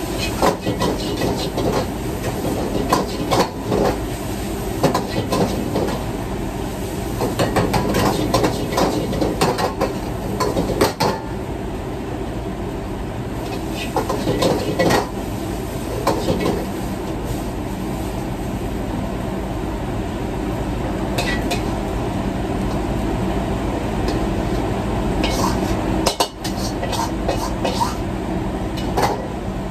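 Metal spatula and ladle clattering and scraping against a wok during stir-frying, in bursts that are busiest in the first half and again near the end. Under it runs the steady noise of the wok range and its exhaust hood.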